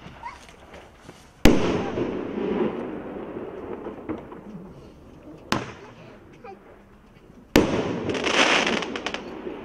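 A 1-inch, 8-shot Roman candle firing. There are two loud bangs, about a second and a half in and again about seven and a half seconds in, as shots burst into stars, and each is followed by a long echoing tail. A smaller sharp pop comes about five and a half seconds in.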